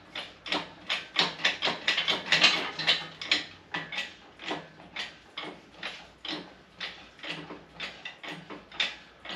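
Pittsburgh foldable 1-ton shop crane being pumped up by its hydraulic ram handle to raise the boom under a light load: a steady series of sharp mechanical clicks, about three a second, spacing out a little toward the end.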